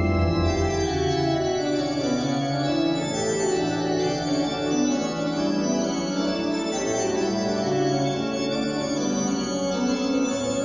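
Organ played with both hands: held chords over quick, shifting notes. A deep held bass note drops away about a second and a half in.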